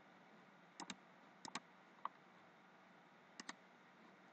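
Near-silent room tone broken by three quick pairs of faint computer mouse clicks, spread through the few seconds.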